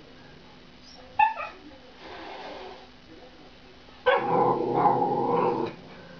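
Miniature schnauzer barking and growling: one short sharp bark about a second in, then a loud, rough growling bark lasting about a second and a half, starting about four seconds in.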